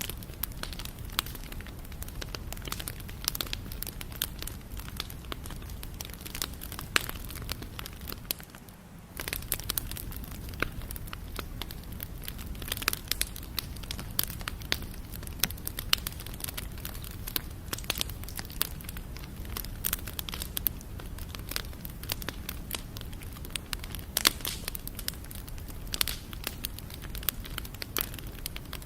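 Campfire crackling: irregular sharp pops and snaps of burning wood over a steady low rumble of the flames, dipping quieter for a moment about eight seconds in.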